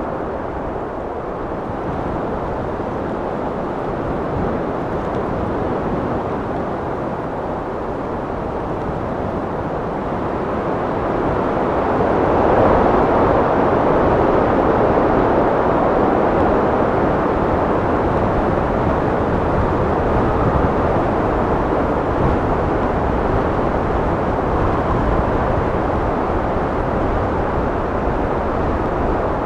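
Steady wind blowing, a dense rushing noise that swells into a stronger gust about ten to twelve seconds in and holds there.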